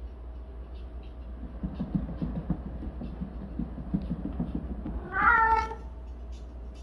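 A cat wheel turning under a tabby cat's steps gives a rhythmic low rumble for a few seconds. About five seconds in, the cat gives one loud meow.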